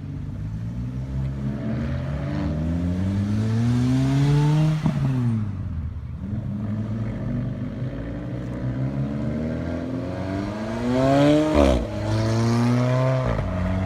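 Mercedes-AMG GT's V8 accelerating: its note climbs for about five seconds, then drops sharply at an upshift. It runs steadily, then climbs and drops again twice near the end as it shifts through the gears.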